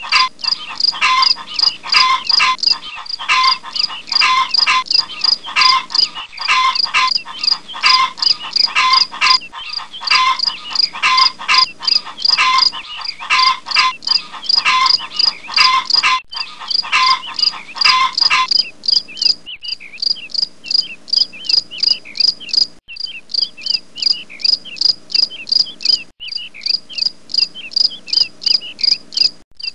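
Rhythmic insect chirping, a few short chirps a second. A lower repeating call runs alongside it and drops out about eighteen seconds in.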